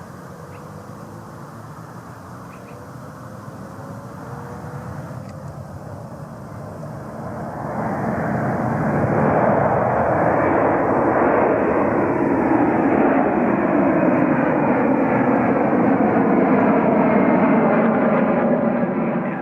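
Airliner engines passing close by: the sound builds slowly with faint gliding tones, swells to loud about eight seconds in, and holds there until it begins to ease near the end.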